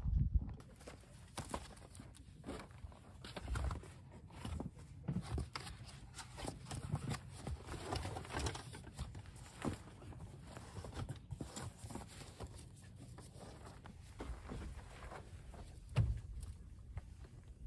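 Rustling and soft knocks of a folding foam sleeping mat being handled and laid down in a small van's cargo space. A louder thump comes near the end.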